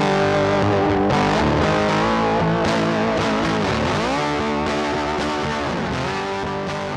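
Background music led by a distorted electric guitar, with bending, sustained notes, slowly fading toward the end.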